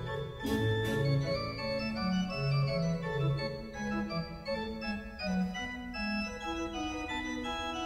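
Organ music: a slow classical piece of held chords with a moving lower line, the notes changing a few times a second. Two brief clicks come about half a second in.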